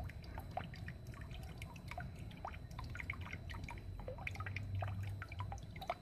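Water dripping in quick, irregular drops, with small rising plinks, over a low steady hum that is strongest in the second half.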